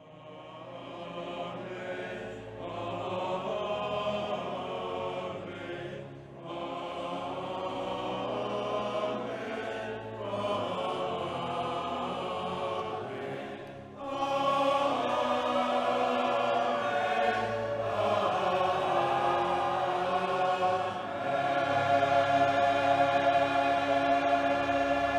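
A choir singing in long held chords, phrase by phrase, fading in at the start and swelling louder about halfway through.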